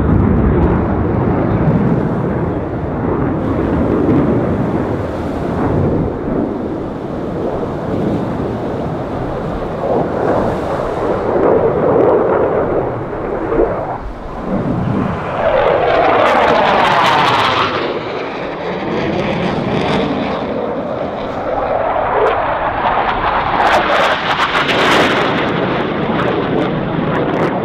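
Blue Angels F/A-18 Super Hornet jets flying past overhead, their turbofan engines making a loud continuous jet roar. The sound swells and sweeps in pitch as jets pass close about halfway through and again near the end.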